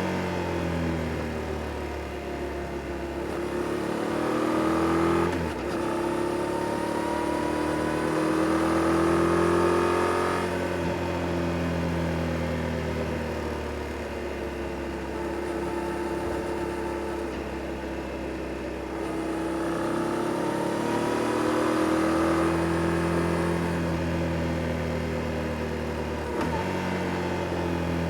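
Yamaha Tracer 7 GT's parallel-twin engine through its stock exhaust, pulling up through the revs and backing off as the bike rides through bends. The pitch climbs, breaks sharply about five seconds in at a gear change, climbs again, drops away around ten seconds, then rises and falls again. There is another quick gear change near the end.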